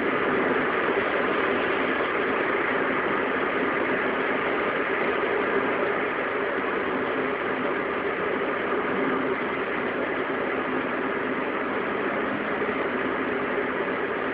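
Steady drone of a car's wheel hub and running gear, the abnormal hub noise that the owner is demonstrating. It becomes slightly quieter after about six seconds.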